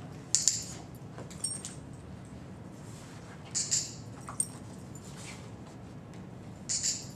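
Dog's collar tags jingling in a few short bursts as the dog moves: once just after the start, twice in the middle and once near the end.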